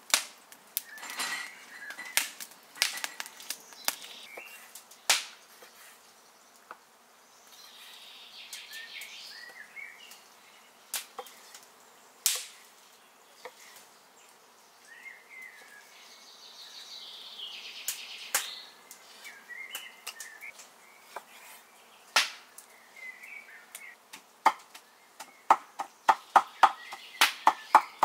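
Meat cleaver chopping liver on a wooden cutting board: scattered single chops, then a fast run of about four chops a second near the end. Birds chirp in the background.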